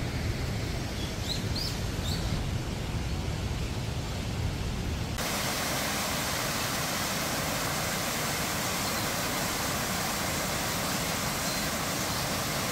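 Low rumble of wind on the microphone with a few faint high chirps. About five seconds in it changes abruptly to the steady rush of water tumbling over a small cascade in a stream.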